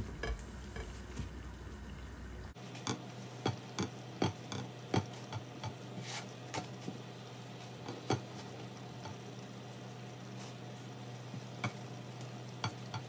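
Plastic spatula pressing and patting a puffing roti on a nonstick tawa: scattered soft taps and clicks, irregular, about one or two a second, over a faint hiss and a steady low hum.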